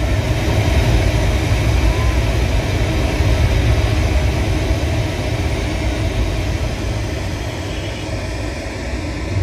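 Loud, steady rumbling from the projection show's soundtrack over outdoor loudspeakers, heavy in the bass, with no clear melody.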